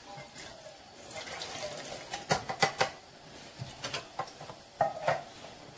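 Water poured from a small container into a blender jug, a light trickle followed by several sharp clinks and knocks of the container against the jug and countertop.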